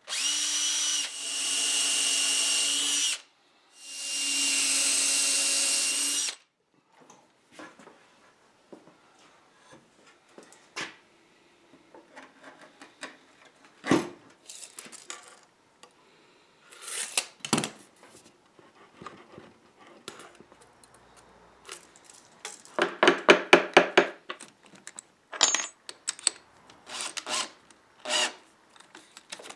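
Makita cordless drill boring through wooden cleats in two runs of about three seconds each, with a short pause between. After that come scattered light knocks and clicks of tools and wood being handled, including a quick rattling run of clicks about two thirds of the way in.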